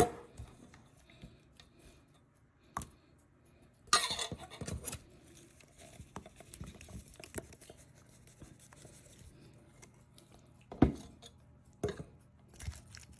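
A spoon scraping and knocking against a bowl while sugar-coated apple slices are spooned into a pie crust, with soft wet slaps of the slices landing. The sounds are irregular knocks and clicks, with a louder cluster about four seconds in and a sharp knock near the end.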